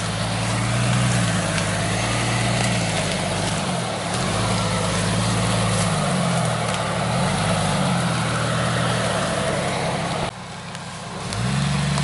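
Jeep Cherokee XJ engine working under load on a steep climb, the revs rising and falling again and again as the driver feeds throttle. About ten seconds in the sound drops away suddenly, then the engine revs up again.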